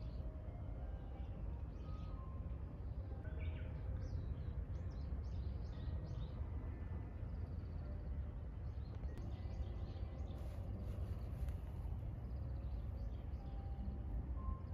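Outdoor ambience of a steady low rumble with small birds chirping: short high chirps come scattered through it, thickest in a few clusters.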